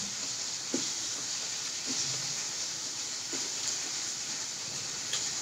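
Chicken deep-frying in hot oil: a steady sizzle, with a few faint soft ticks.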